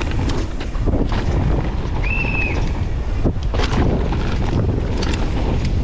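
Downhill mountain bike descending a rough track: wind rushing over the microphone, with the bike rattling and clattering over the ground and a brief high squeal about two seconds in.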